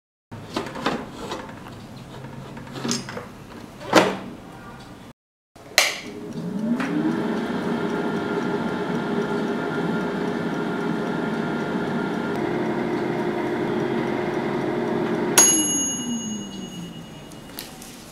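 Havells air fryer: clicks and knocks of tongs turning samosas in its metal basket, then its fan whirs up, rising in pitch, and runs steadily for about eight seconds. It stops with a click and a bell-like ding, and the whir falls in pitch as it winds down.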